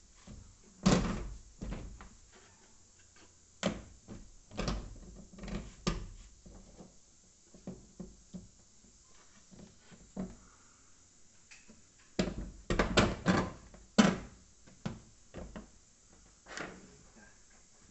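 Irregular knocks and clunks of a plastic rooftop evaporative air cooler being handled and fitted onto a Kombi van's roof, with a quick run of louder knocks about twelve to fourteen seconds in.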